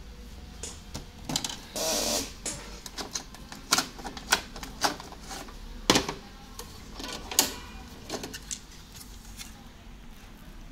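Irregular plastic clicks, snaps and rattles as ink cartridges and the printhead are unclipped and lifted out of an HP inkjet printer's carriage. There is a brief scraping rattle about two seconds in and a few sharp snaps later.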